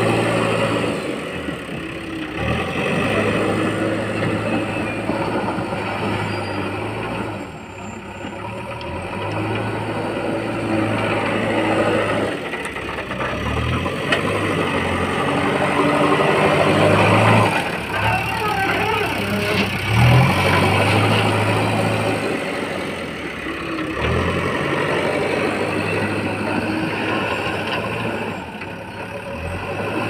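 Diesel engine of a JCB 3DX backhoe loader running and revving up and down every few seconds as the machine drives and works its front loader bucket.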